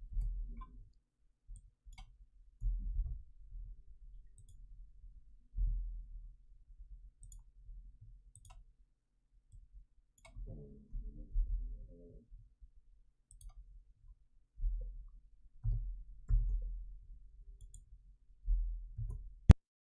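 Computer keyboard keystrokes and mouse clicks, faint, with low dull thumps in between, as a spreadsheet formula is typed in. One sharp, loud click near the end.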